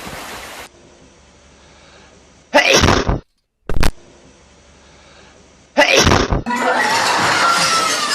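A person sneezing loudly, twice, about three seconds apart; the second sneeze runs on into a long noisy blast of breath that stops near the end.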